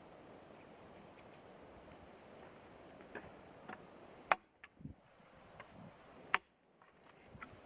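Two sharp knocks about two seconds apart, with a few fainter ticks and clicks around them, over a steady background hiss.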